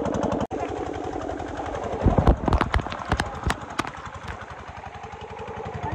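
A tubewell pump's engine running with a fast, even beat over the rush of water pouring from the pipe. From about two seconds in, water splashing straight onto the microphone adds loud crackling knocks.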